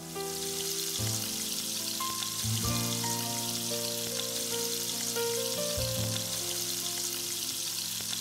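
Cubes of beef sizzling steadily in hot oil in a nonstick frying pan as they are stir-fried with tongs, with light background music over it.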